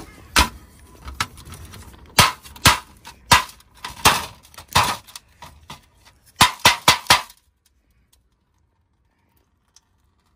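Sharp metallic clinks and knocks, about a dozen spread over seven seconds, as a boiler's removed plate heat exchanger is handled over a metal tray. Then it goes almost silent.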